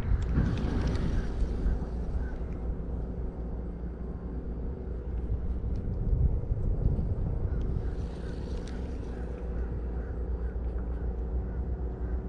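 Steady low motor hum with a fixed pitch.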